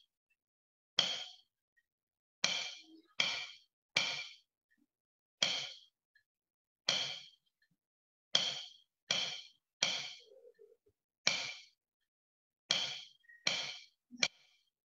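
Single drumstick strokes on a drum practice pad, playing a bass drum part at 82 BPM. The strokes are mostly about a second and a half apart, with three quicker runs of three evenly spaced strokes.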